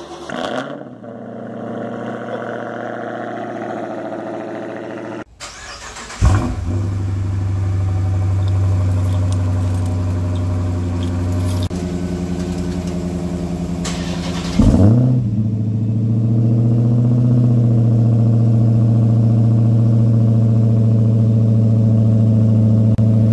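Dodge Charger SRT Hellcat supercharged 6.2-litre V8 exhaust in several short clips: the engine catching with a sharp rev flare about 6 s in and again about 15 s in, each time settling into a loud steady idle.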